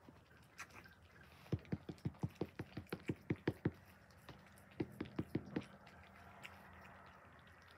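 Tabby cat eating soft cat food off the deck: a quick run of smacking chewing clicks, about six a second, then a pause and a shorter run.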